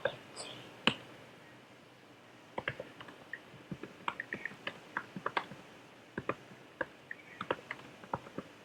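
Typing on a computer keyboard: key clicks in quick irregular runs, with a pause of about a second and a half near the start.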